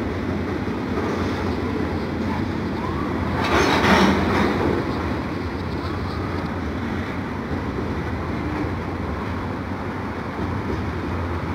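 Double-stack intermodal freight train rolling past, a steady rumble of wheels on rail. A louder noisy surge swells up for about a second around four seconds in.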